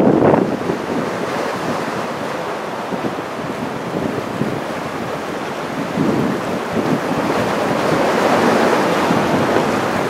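Heavy typhoon surf breaking and washing in, with wind buffeting the microphone; the noise grows louder in the second half.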